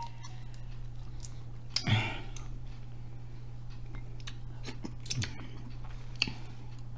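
Small clicks and cracks of boiled crab shell being picked apart by hand close to a microphone, with a few louder cracks about two seconds in and again near five and six seconds.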